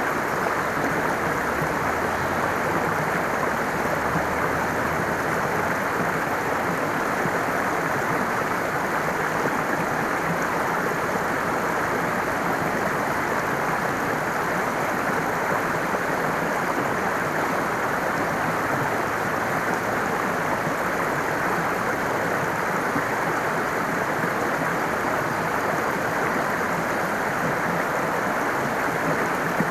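Flowing water rushing steadily, like a stream, with an even, unchanging hiss.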